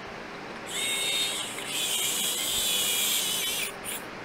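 A high-pitched hiss with a whistling edge starts under a second in and stops about three seconds later, followed by a short second puff.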